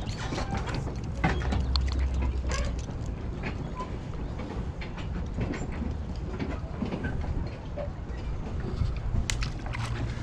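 Steady low rumble under small scattered clicks and knocks of fishing tackle being handled: the fish unhooked, a jig and bobber rigged, and the line cast again.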